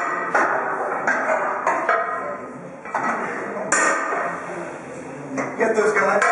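Gym weights clanking: repeated sharp metal clinks and knocks, about eight strikes at uneven intervals over a busy background.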